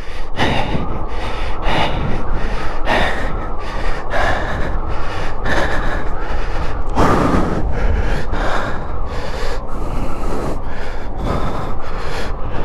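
A rider breathing hard from the effort of pedaling, with a loud exhale about every second or so. Under it runs a steady rumble of wind on the microphone.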